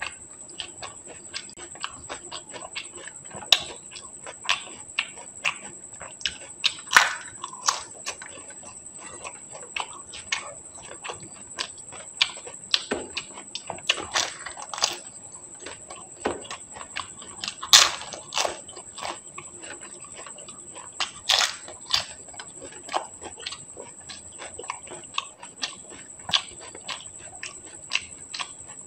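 Close-miked eating of pani puri (golgappa): the crisp hollow puri shells crack and crunch in the mouth, with wet chewing and smacking, in irregular sharp bursts.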